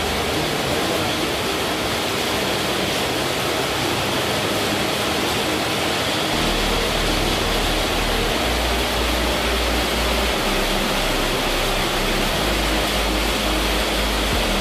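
Heavy rain falling onto pond water, a steady even hiss. Low bass notes of background music join about six seconds in.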